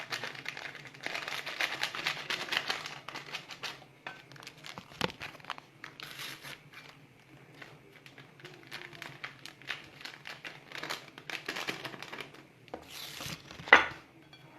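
Paper and plastic sachets of leavening crinkling and tearing as they are opened and emptied, in irregular rustles and small clicks, with one sharper click near the end.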